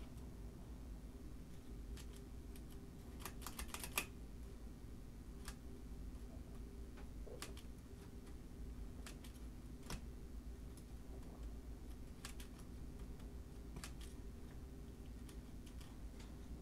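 Scattered small mechanical clicks from the number wheels and carry levers of a 1925 Burroughs Class 5 key-driven calculator being nudged with a metal pick, with a quick run of clicks about four seconds in and single clicks every couple of seconds after. The carry mechanism is jammed by dried-out old oil and is being worked loose. A faint steady hum runs underneath.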